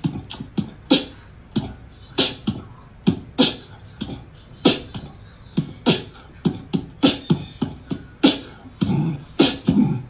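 A quick series of short, sharp percussive hits, unevenly spaced at roughly one to two a second.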